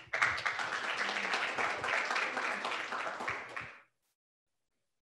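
Audience applauding for about three and a half seconds, then stopping abruptly.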